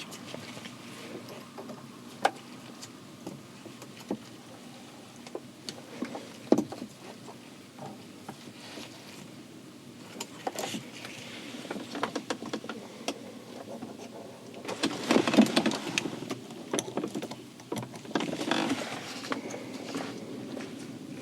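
Hand work on a transfer case shifter knob: scattered small clicks and taps of a hex key and knob being handled, with denser rattling and rustling around fifteen seconds in and again near nineteen seconds.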